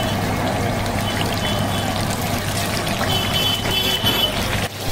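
Batter-coated tomato fritters deep-frying in a large kadai of hot oil, the oil sizzling and bubbling hard, over a steady low hum.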